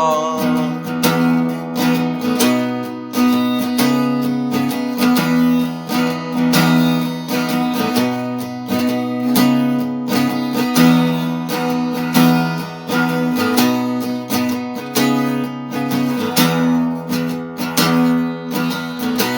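Acoustic guitar strummed in a steady rhythm with the chords ringing on, playing the song's instrumental ending.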